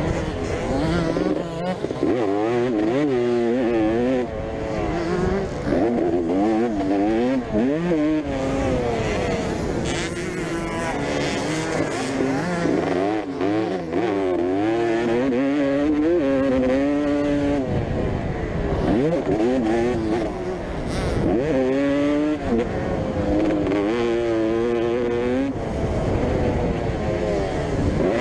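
Several motocross bikes racing, their engines revving up and dropping off over and over as riders work through the gears, with more than one engine heard at once. Among them is a 1992 Honda CR250, a 250 cc two-stroke.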